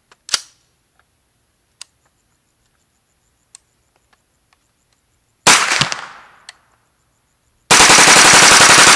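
9mm AR-15 carbine bump-fired from a Slidefire stock in rapid, near full-auto bursts: a sharp click near the start, a short burst about five and a half seconds in, then a long unbroken string of shots from about eight seconds on.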